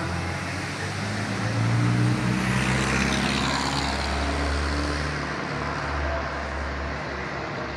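Classic muscle car's engine running with a low exhaust rumble, getting a little louder about two seconds in.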